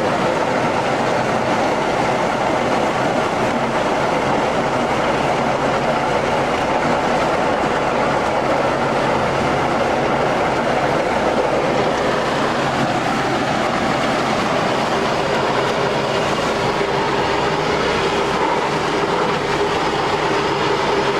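Tandem road roller running, a loud steady machine noise that does not change.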